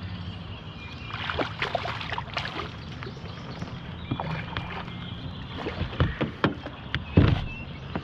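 A small channel catfish splashing at the water's surface beside an aluminium boat as it is reeled in and lifted out, with two heavy knocks about six and seven seconds in, over a steady low hum.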